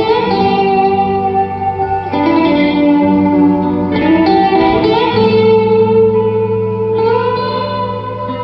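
Live rock band playing an instrumental stretch of the song: electric guitars with reverb and effects holding sustained chords that change every second or two, over a steady bass.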